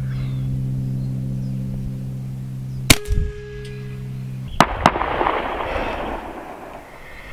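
A single sharp air rifle shot about three seconds in, over a steady low hum that cuts off shortly after. Two quick sharp clicks follow, then a soft hiss that fades away.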